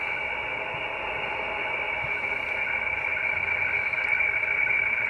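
HF weather fax (radiofax) signal received on a shortwave receiver in upper sideband: a steady high tone with a weaker lower tone over radio hiss. This is the frequency-shifted picture signal that the software decodes, with the high tone for the white of the chart and the lower one for the black lines.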